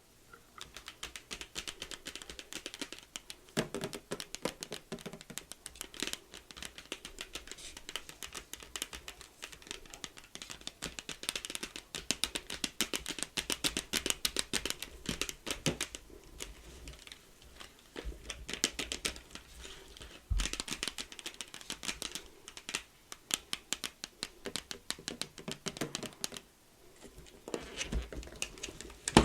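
Close-miked crisp clicking and crackling trigger sounds in quick irregular runs, pausing briefly a few times.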